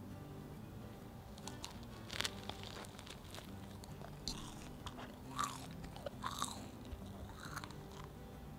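Crisp almond crumble topping and baked choux shell of a cream puff crunching as it is bitten into and chewed, a run of sharp crackles that starts about a second and a half in, loudest around two, five and six seconds in.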